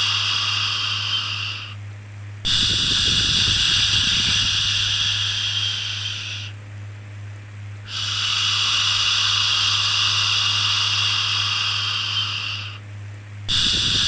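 Long, steady 'shhh' shushing of the kind used to soothe a baby, repeating every five or six seconds with a break of about a second between each, over a constant low hum.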